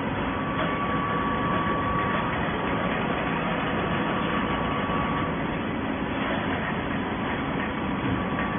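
Horizontal baler running: a steady mechanical hum and rumble with a faint high whine that fades out about five seconds in.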